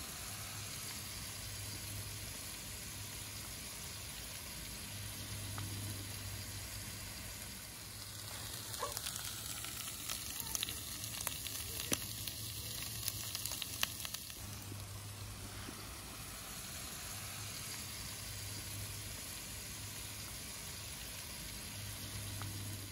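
Ground meat sizzling on a Blackstone flat-top griddle, a steady frying hiss. There is a stretch of sharper crackling and clicks in the middle.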